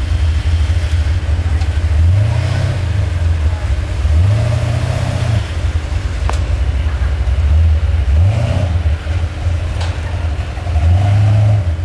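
Off-road truck's engine revving in about four repeated surges, rising and falling, as the truck works its way through deep snow.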